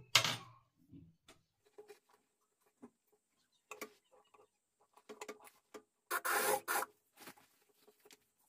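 Industrial single-needle sewing machine running a short burst of stitches, under a second long, about six seconds in, sewing a zipper into a jacket. Before it come scattered light clicks and rustles of the fabric being handled, and a sharp click just after the start is the loudest sound.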